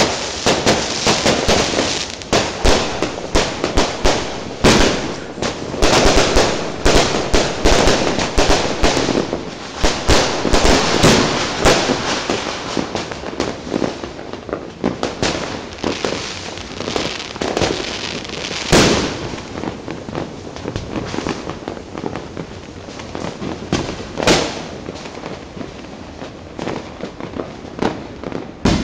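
Fireworks and firecrackers going off in a dense, rapid crackle of bangs that thins out after about halfway, with a couple of separate louder bangs later on.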